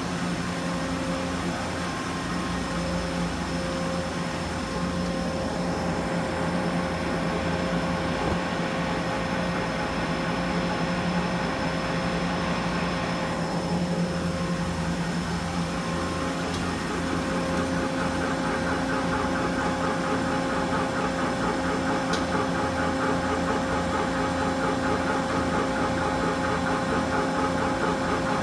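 Steady machine hum of a Mitsubishi SC 40CNC gear shaper standing powered up, with a fixed low tone and a higher steady tone; about two-thirds through it grows slightly louder, with a faster fluttering rattle added on top.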